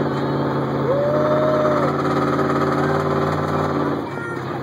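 Engine of the Grave Digger monster-truck ride vehicle running steadily under way, with a single held high note about a second in; the engine drone eases near the end.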